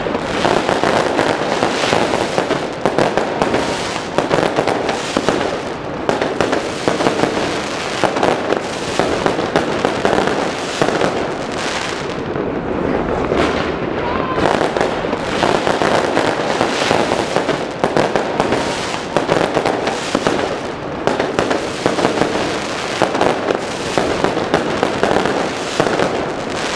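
Fireworks going off in a dense, continuous barrage of rapid bangs and crackles with no pause.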